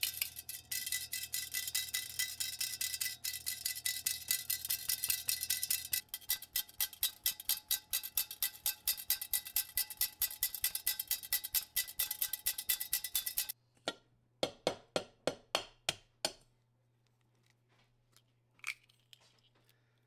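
Stainless steel mesh sieve tapped over a glass bowl to sift matcha powder and flour through: fast metallic tapping with a light ring, several taps a second. About 14 seconds in it slows to a handful of separate taps and stops, followed by one small click near the end.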